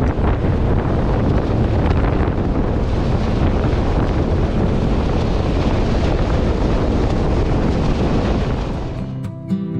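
Wind buffeting the microphone over the rush of water and the motor of a small fishing boat running at speed. About nine seconds in it cuts to acoustic guitar music.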